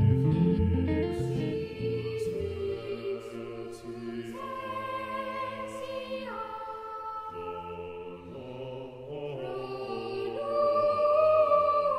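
Music: a plucked-guitar track with bass fades out over the first few seconds into slow, held choral chords that change every second or two and swell near the end.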